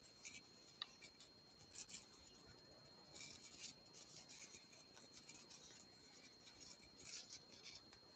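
Faint scratchy rustling of yarn being worked with a crochet hook, in short irregular strokes, over a thin steady high-pitched electronic whine.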